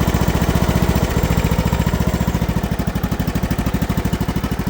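Briggs & Stratton Platinum 540cc, 21 hp engine of an old Craftsman riding mower running steadily with even firing pulses, just after a cold start on year-old gasoline. It runs smoothly, a purr.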